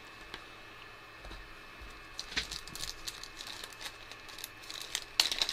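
Light rustling and small clicks from hands handling small parts and plastic on a bench. It is quiet for about the first two seconds, then the handling sounds pick up and grow busier toward the end.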